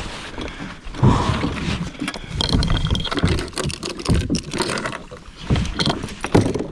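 Irregular knocks and bumps on a plastic fishing kayak's hull, with a few sharp clicks of gear being handled.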